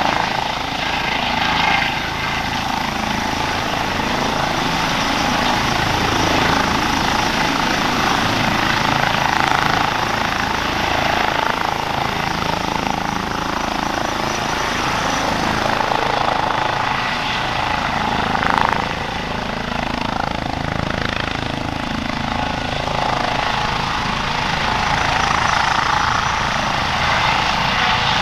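Airbus Helicopters EC135 P2+ with twin Pratt & Whitney Canada PW206B turboshaft engines, running at take-off power as it lifts off the grass and hovers low. Steady turbine and rotor noise, with a brief louder swell about two-thirds of the way through.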